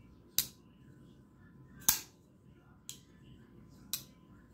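Damned Designs Djinn XL folding knife's blade being flicked open and shut, giving sharp clicks: two strong ones in the first two seconds, then two lighter ones about a second apart.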